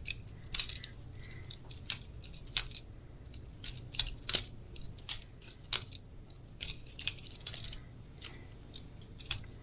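Boker Plus balisong butterfly knife being flipped: a dozen or so sharp, irregularly spaced clicks as the handles and blade swing about the pivots and clack together.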